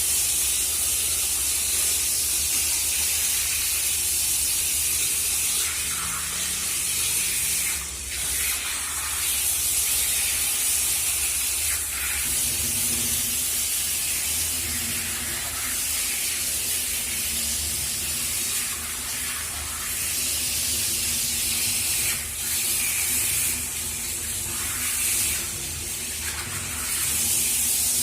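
Water spraying from a shower head in a steady hiss, dipping briefly a few times.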